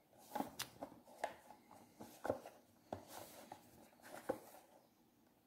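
A cardboard Funko Pop box with a clear plastic window being handled and turned in the hands: faint rustling with a handful of sharp, irregular clicks and taps.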